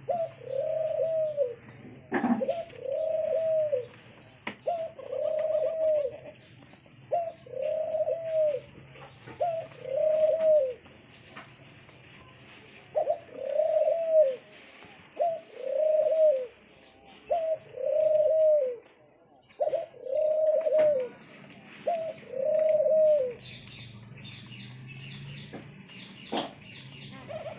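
White dove cooing over and over: about a dozen single coos, each about a second long and arching up then down in pitch, every second or two, stopping a few seconds before the end. A few sharp knocks, the first about two seconds in.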